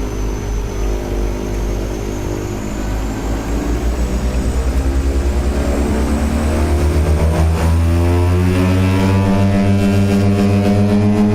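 Small twin-engine turboprop airliner's engines and propellers heard from inside the cabin, spooling up to takeoff power: the propeller drone climbs in pitch with a pulsing beat over several seconds, then holds steady and loud.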